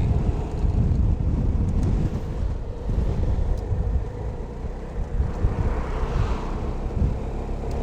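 A car driving at about 70 km/h in strong wind: uneven low wind rumble on the microphone over steady road noise. A hiss swells and fades about six seconds in.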